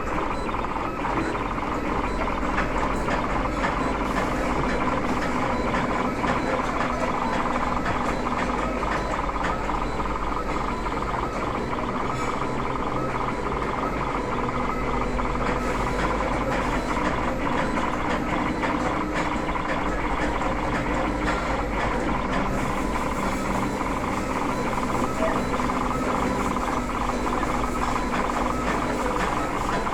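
CNC lead wire cutting machine running: a steady mechanical whirr with rapid clicking, and a low motor tone that comes and goes every few seconds as the machine cycles.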